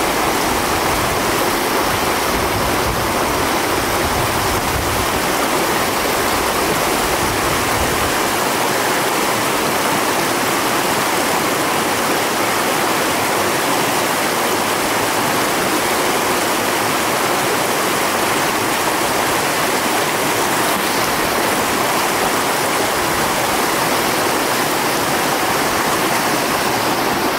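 Snowmelt mountain stream rushing and splashing over rocks in small cascades: a loud, steady rush of water.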